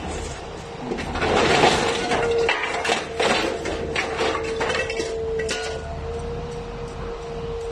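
Orange-peel grab of a scrap handler closing on scrap metal in a steel cage and lifting it out, with metal pieces clanking and rattling against each other and the cage. The clatter starts about a second in, is densest for the next couple of seconds, then thins to scattered knocks, with a steady hum underneath.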